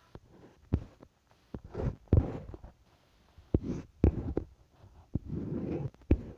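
Irregular soft thumps and short rustles from fingers tapping and dragging on a phone's touchscreen while drawing, picked up by the phone's own microphone.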